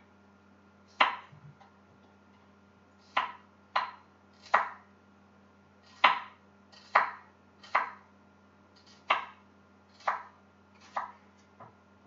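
Knife chopping a large green onion, one slow stroke at a time: about eleven sharp knocks, roughly one a second with uneven gaps.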